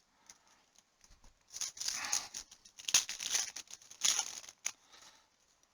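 Cellophane trading-card pack wrapper being torn open and crinkled, in a run of crackling, rustling bursts over about three and a half seconds.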